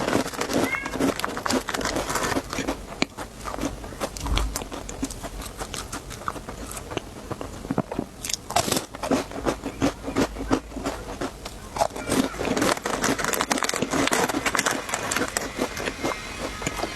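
Snack eating up close: dense, irregular crunching and crackling from biting and chewing crisp snacks and handling their packaging.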